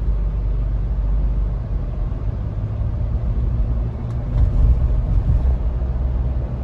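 Steady low rumble of engine and road noise inside the cabin of a Mahindra Thar diesel automatic on the move, a little louder about four seconds in.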